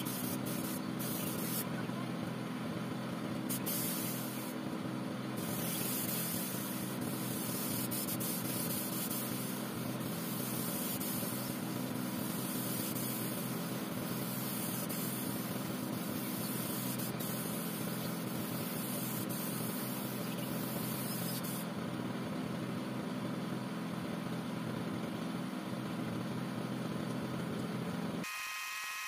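Compressed-air spray gun hissing as it sprays melamine gloss lacquer, pausing twice in the first few seconds and easing off about three-quarters of the way through, over the steady hum of the air compressor feeding it. Near the end the hum cuts off and a higher-pitched whine takes over.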